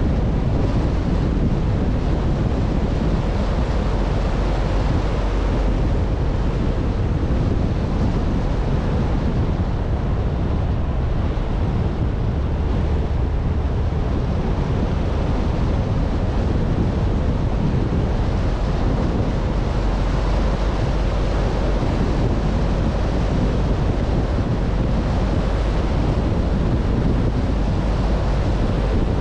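Steady rush of wind buffeting the microphone of a camera on a moving car, with a low rumble underneath and no let-up.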